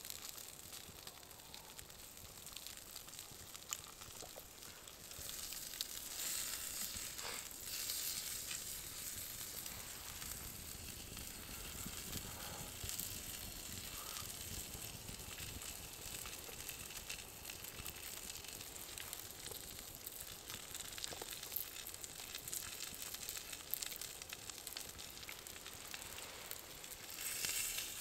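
Small wood campfire burning with a steady hiss and scattered small crackles, a little louder from about five seconds in.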